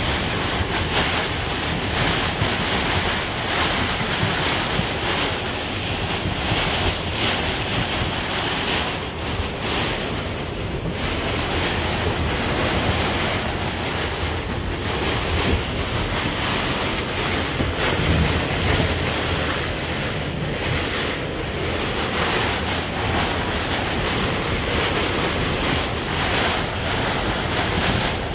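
Severe thunderstorm wind and heavy rain lashing a sailboat's clear vinyl cockpit enclosure, heard from inside as a loud, continuous rush of noise that swells and eases with the gusts, with wind buffeting the microphone.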